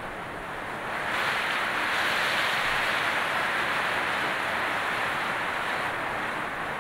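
Heavy rain pouring through the wire-mesh roof of an aviary and splashing down, a steady hiss that grows louder about a second in.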